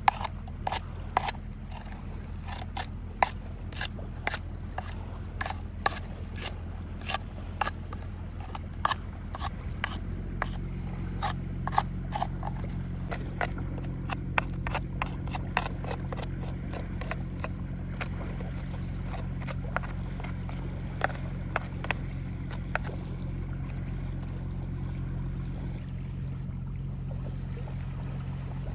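A hard shard scraping and chipping caked, dried mud and rust off an old metal telescope tube: quick, sharp scratches several a second, thinning out over the last few seconds. A low, steady hum runs underneath.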